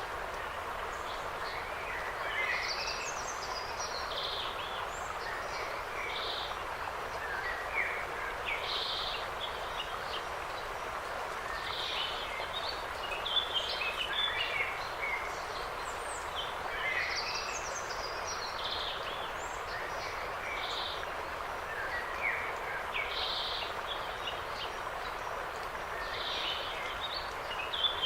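Small songbirds chirping and trilling in scattered bursts over a steady rush of wind in the trees.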